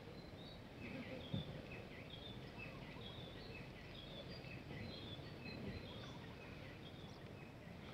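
Faint outdoor ambience: birds give a steady string of short, high chirps, two or three a second, over a low rumble. There is one soft knock about a second in.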